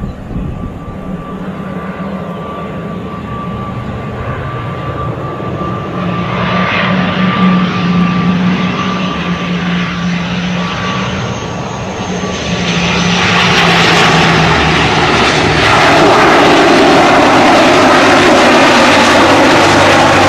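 ATR 72-600 turboprop's engines and propellers during landing: a steady drone with a high whine over a low hum, growing louder, then a much louder rush of engine and propeller noise from about two-thirds of the way in.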